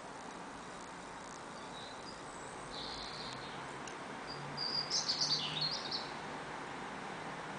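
Small birds chirping over a steady background hiss: a brief chirp about three seconds in, then a quick run of louder chirps around five seconds in.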